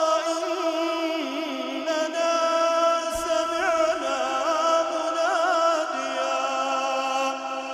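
Melodic Quran recitation in the tajwid style: one voice holds long sustained notes, bending them into ornamented turns without a break.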